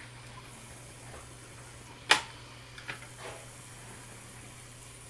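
A steady low hum with a sharp click about two seconds in, followed by two or three fainter knocks.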